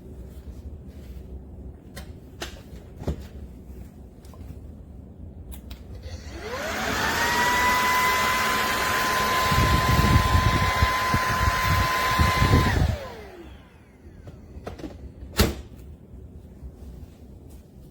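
Bissell PowerClean 200W cordless stick vacuum switched on: the motor whines up to speed, runs steadily for about six seconds with a low rumble in its second half, then winds down as it is switched off. Scattered clicks and knocks of handling before and after.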